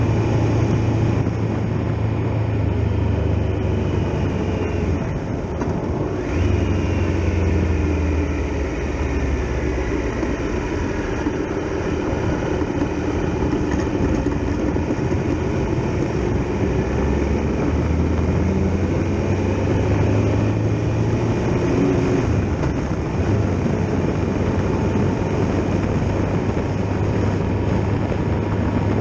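Triumph Tiger Explorer XRx motorcycle with its three-cylinder engine running, under a steady rush of wind and road noise. The engine note rises and falls at times.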